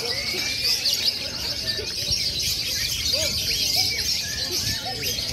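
Many lovebirds singing at once in a contest hanging line, a dense, continuous high-pitched chatter of quick chirps and trills, with people's voices underneath.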